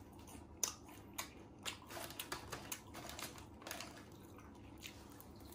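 Eating crispy battered fried mushrooms with cheese: irregular crunchy clicks from chewing and from fingers picking pieces out of a plastic takeaway container.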